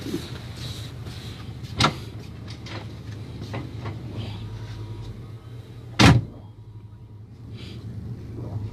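Steady low rumble of a moving vehicle, broken by a sharp knock about two seconds in and a louder, heavier bang about six seconds in, like doors or fittings clanking.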